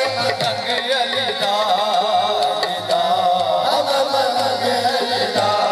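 Qawwali music: harmonium melody over a steady hand-drum beat.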